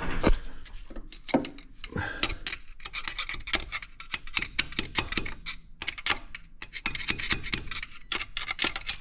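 Rapid, irregular metallic clicks and taps from a Ford 8.8 rear axle shaft being pushed inward and worked loose in the differential housing.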